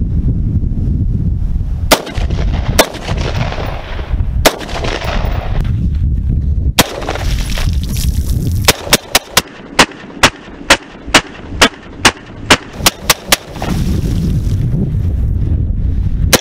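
Semi-automatic AR-15 rifle firing: four shots spaced a second or two apart, then a quick string of more than a dozen shots at about three a second, then a single shot at the end.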